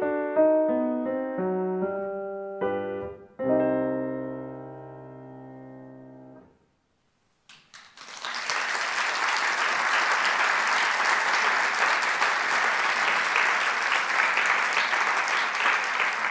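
Grand piano playing the closing bars of a fugue, ending on a held final chord about three seconds in that rings and fades away. After a moment of silence, an audience applauds steadily.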